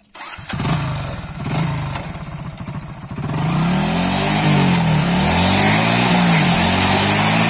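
Hero Glamour motorcycle's 125 cc single-cylinder engine revving up and down as the rear wheel spins in shallow water. From about three and a half seconds in, a loud steady rush of water spray from the spinning tyre joins the engine.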